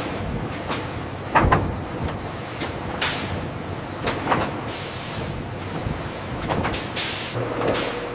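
Processing-plant machinery running steadily, with repeated short hisses about every second and a thin high whine in the first few seconds.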